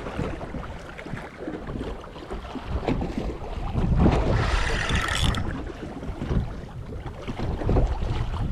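Wind buffeting the microphone on a small open fishing boat: a low rumble that rises and falls in gusts, with a brief brighter hiss about four to five seconds in.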